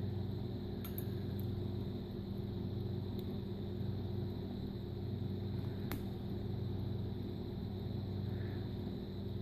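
Steady low background hum with several fixed low tones, with a few faint light clicks, the sharpest about six seconds in.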